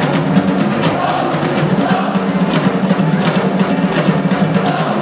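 Drum-led music: several drums played together in a fast, steady rhythm over a low, sustained bass.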